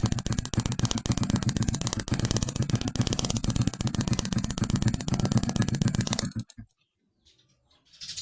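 Small motorcycle engine running with a fast, even ticking beat, then dying abruptly about six seconds in, leaving near silence. The bike is hard-starting, which the mechanic blames on a weak ignition spark.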